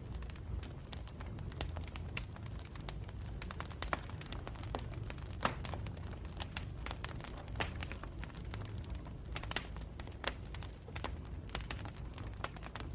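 Fire crackling: irregular sharp pops and snaps over a low, steady rumble.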